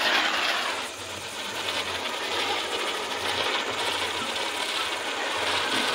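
Lit ground spinner firework (chakri) spraying sparks with a steady hiss and fine crackle, loudest in the first second.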